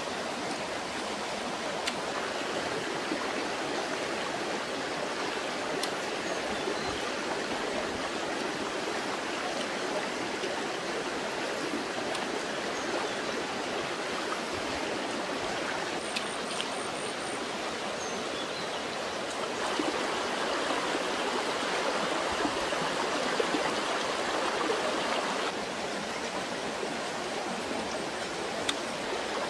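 Steady rush of running stream water. It swells a little louder for a few seconds past the middle, then settles back.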